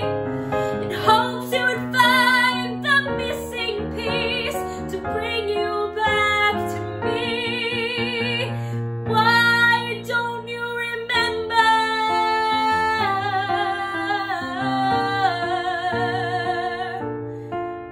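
A woman singing a pop ballad in a belt voice over instrumental accompaniment, holding several notes with a clear vibrato.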